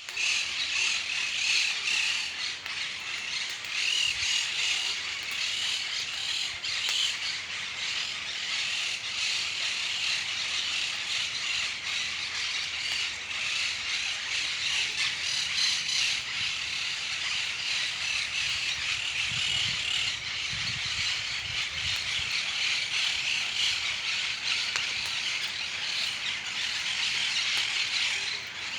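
Many birds calling at once in a dense, continuous chorus of squawks and chirps, steady throughout.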